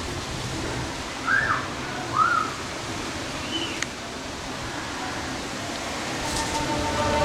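Three short chirping bird calls, each rising then falling, over a steady hiss of background noise. Music comes in near the end.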